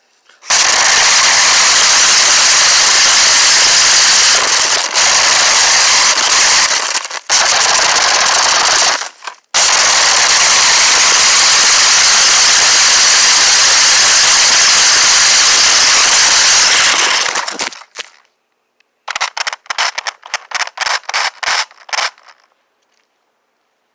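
Toy remote-control car running right by the microphone, a loud continuous rattling clatter that stops briefly three times and cuts out after about 17 seconds. A quick run of sharp clicks follows near the end.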